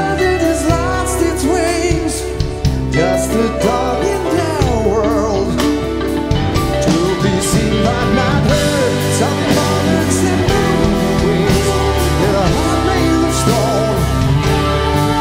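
A rock band playing live: a man singing lead over drums, bass guitar, electric guitar and keyboards.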